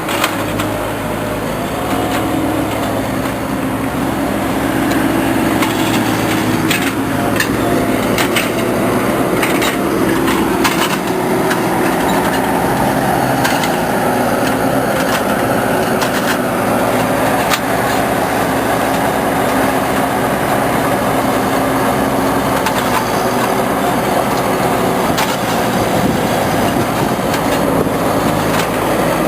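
Engine of the machinery unloading a tractor-trailer load of nursery trees, running steadily with its pitch shifting now and then, and occasional sharp knocks and clatter.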